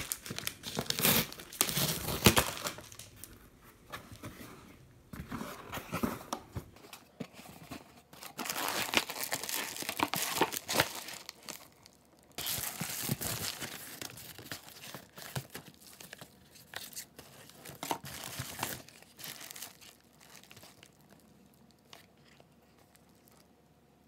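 Unboxing a parcel: packing tape ripped off a cardboard box, then the flaps opened and a plastic padded mailer crinkled and torn open, in bursts of crackling and rustling. The handling thins out to a few light taps near the end.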